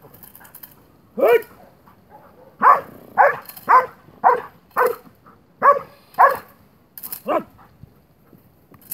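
A 14-month-old shepherd dog barks in excited bursts at a decoy agitating it during protection training. There are about nine loud barks, starting about a second in, several in quick pairs.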